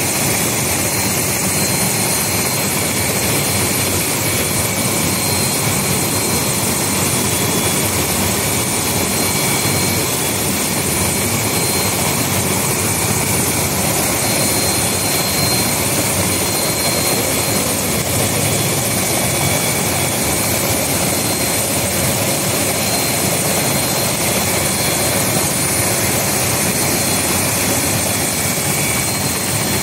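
Light turbine helicopter running on the ground with its rotor turning. A steady engine and rotor noise with a constant high turbine whine.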